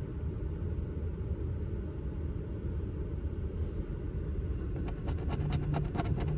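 Low steady rumble of a car idling, heard inside the cabin. From about five seconds in, a coin scrapes rapidly back and forth across the latex coating of a scratch-off lottery ticket.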